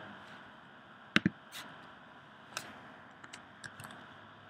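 Dry-erase marker on a whiteboard: a few sharp taps and scratchy strokes as letters are written. The loudest tap comes a little over a second in, and lighter ticks follow near the end.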